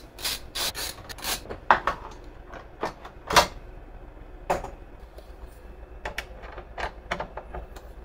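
A screwdriver and loose parts being worked inside an open Apple Xserve server's metal chassis: irregular small metallic clicks, taps and knocks, the loudest about three and a half seconds in.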